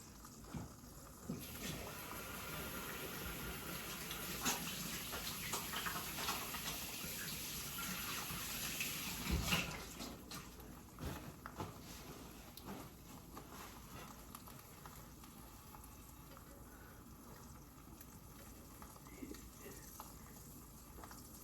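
Kitchen sink faucet running as hands are washed under it, a steady rush of water that shuts off about ten seconds in. Faint scattered clicks and knocks follow.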